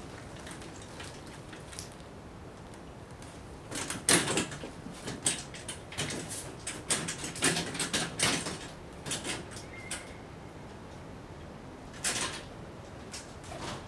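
Hand truck loaded with a cardboard box being wheeled through a glass doorway: an irregular run of knocks and rattles for several seconds, then a single knock near the end as the door shuts.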